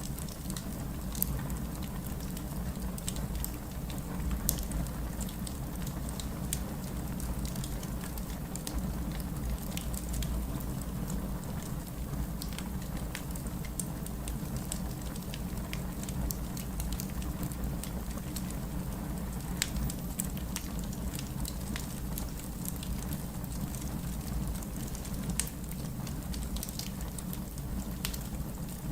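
Fireplace crackling: scattered sharp pops and snaps over a steady low rumble.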